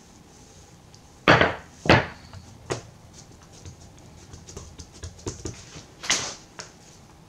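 Several sharp knocks and taps of things being handled on a kitchen work surface during bread-making: two loud knocks about half a second apart a little over a second in, another loud one about six seconds in, and lighter taps between.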